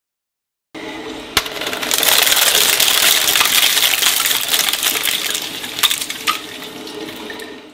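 Twin-shaft shredder running, its steel cutters crunching and snapping a bundle of plastic drinking straws: a hum with a sharp snap about a second and a half in, then dense crackling for about five seconds, with a few louder snaps before it tapers off near the end.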